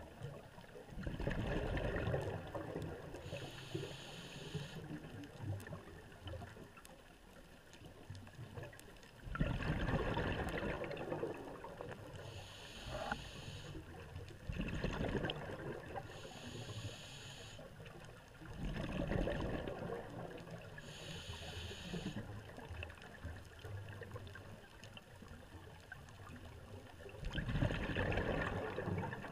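Scuba diver breathing through a regulator underwater: bursts of bubbles on each exhale, every eight to ten seconds, alternating with a hiss on each inhale.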